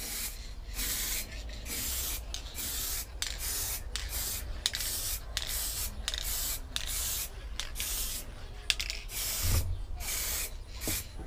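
Aerosol spray can of clear lacquer hissing in a rapid series of short bursts with brief breaks between them, as a coat of lacquer is sprayed on.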